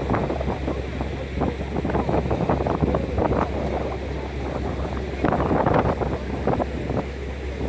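A motor yacht's engine drones steadily underway, while wind buffets the microphone in irregular gusts, strongest about five seconds in.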